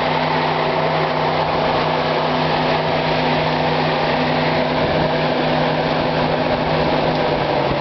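Pontiac Fiero electric radiator cooling fan running steadily at full speed in a truck cab: a constant whir of rushing air over a humming motor tone.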